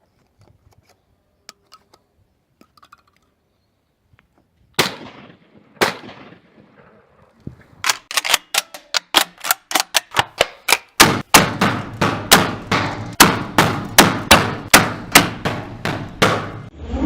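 Two 12-gauge side-by-side shotgun shots about a second apart, then a fast, evenly spaced run of sharp bangs, about three a second. A low rumble joins beneath the bangs about eleven seconds in.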